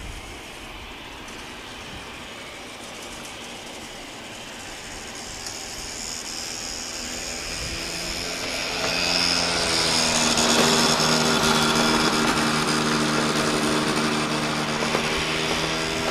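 Dassault Falcon 7X business jet taxiing past on its three Pratt & Whitney Canada PW307A turbofans: a steady jet whine over a low hum that grows louder as it approaches. The engine tones come through clearly about eight seconds in, and it is loudest from about ten seconds in as it passes side-on.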